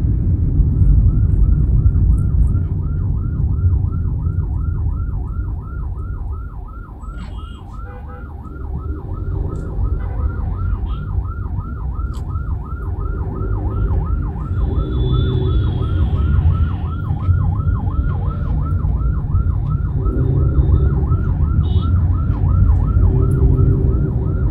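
Emergency-vehicle siren on a fast yelp, sweeping up and down about four times a second, starting about a second in and carrying on throughout. Under it is the steady low rumble of a car driving on the road.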